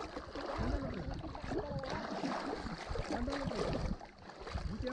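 Shallow seawater sloshing and lapping, with wind buffeting the microphone in low rumbling gusts.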